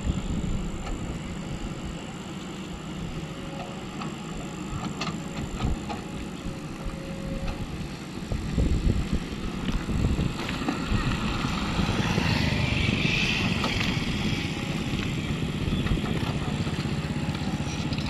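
Hydraulic excavator's diesel engine running steadily as it digs, getting louder about halfway through.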